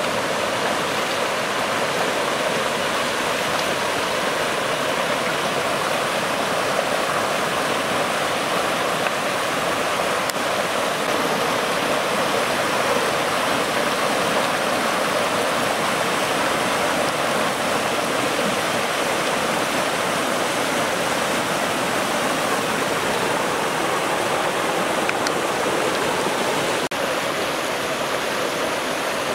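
A shallow, rocky stream rushing over small cascades: a steady, loud rush of water.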